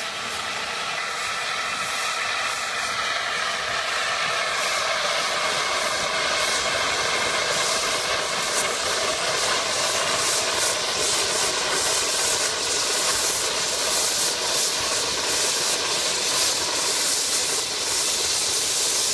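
Home-built steamboat's boiler and engine venting steam: a steady, loud hiss that builds over the first few seconds and then holds.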